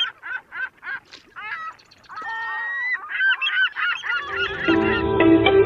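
Birds calling: a quick run of short honking calls, about three a second, then longer overlapping calls. Music with plucked strings fades in over them about four seconds in.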